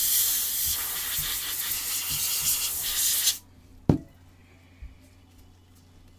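A loud, steady hiss that cuts off suddenly about three seconds in, followed by a single thump.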